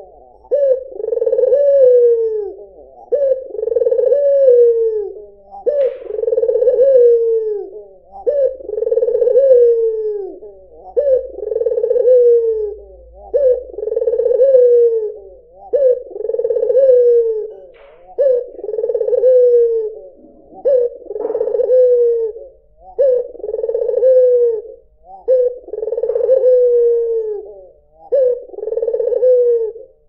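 White (albino) ringneck dove, the Indonesian puter putih, cooing over and over: a low rolling coo about every two seconds, each phrase rising and then falling in pitch.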